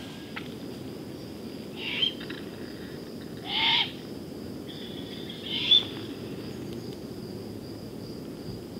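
Great horned owl giving three short, hoarse screeches about two seconds apart, the middle one the longest.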